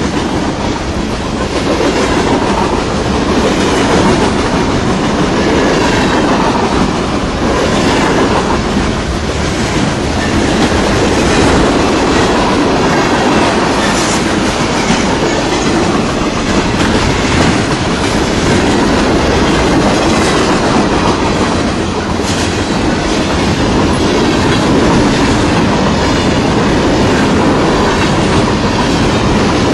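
Freight train cars rolling past in a steady loud rumble, with wheels clicking over the rail joints.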